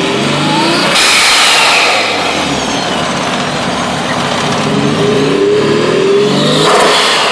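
Nissan RB20DET turbocharged straight-six revved twice, each rev followed by a loud rush of air as the throttle shuts, which the owner takes for compressor surge with a blow-off valve that isn't opening as it should. The engine is misfiring on cylinders 4 and 5.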